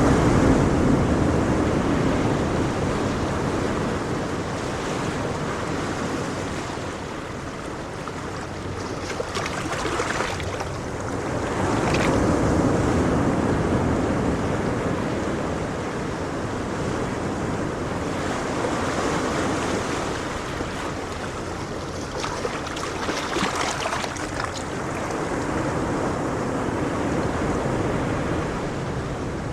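Ocean waves: a steady wash of surf that swells and eases every several seconds, with waves breaking more sharply about a third of the way in and again a little past three quarters.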